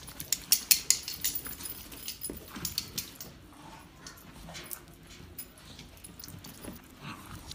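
Two Cavalier King Charles spaniels play-fighting on carpet: scuffling with a quick run of sharp clicks and jingles for the first few seconds, then lighter scrabbling.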